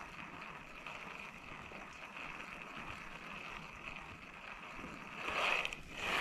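Steady outdoor hiss of wind and river water, then about five seconds in a short, louder splash as a hooked trout thrashes at the surface and throws the lure.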